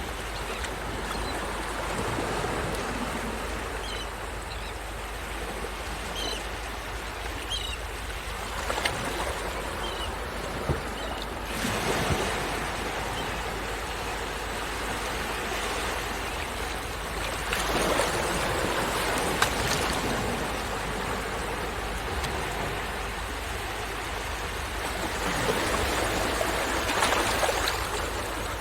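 Waves washing and breaking on a shore, the surf swelling several times. A few short calls of sandwich terns sound in the first third.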